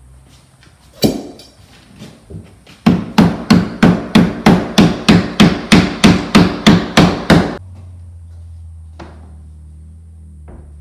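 Claw hammer striking the sheetrock edge beside a door jamb: one blow, then a quick even run of about seventeen blows at roughly four a second, crushing in drywall that stands proud of the jamb so the door trim can sit tight against it. The hammering stops a little past halfway and a low steady hum remains.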